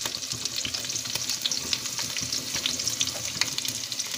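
Chopped onion and green chillies sizzling in hot oil in a steel kadai: a steady frying hiss with many small crackling pops.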